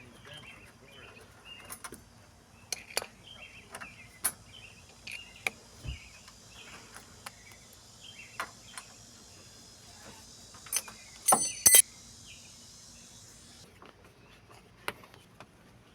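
Scattered clicks and clacks of hand tools and metal and plastic door-trim parts being handled on a car door, with a quick cluster of sharp clicks about eleven seconds in. Faint chirping underneath.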